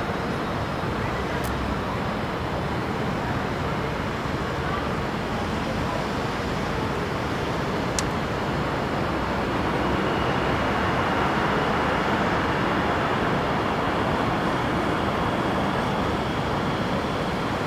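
Steady hiss of road traffic, swelling a little around the middle. A faint high whine comes in about ten seconds in, and there is one sharp click about eight seconds in.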